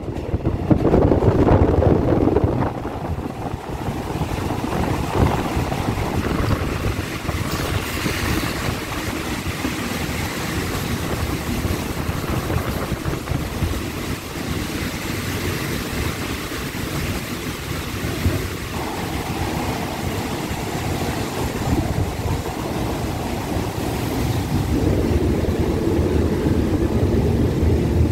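Passenger train running, heard from on board through an open window: a steady rumble of the moving train mixed with wind on the microphone. It is a little louder in the first couple of seconds and again near the end.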